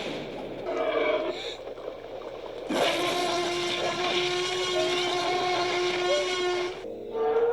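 Dinosaur creature sound effects: a short rasping call with a rising pitch, then one long droning call held steady for about four seconds that cuts off suddenly, and another pitched call starting near the end.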